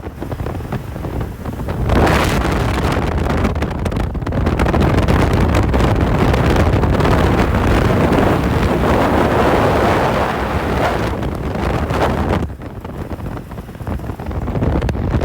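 Wind buffeting the microphone on a moving motorcycle, a loud steady rush with the ride's engine and road noise underneath; it eases off about twelve and a half seconds in, then builds again.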